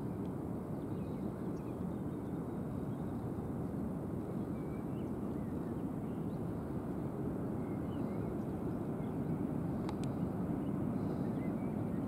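Steady low rumble of wind and distant surf, with faint short bird chirps scattered through.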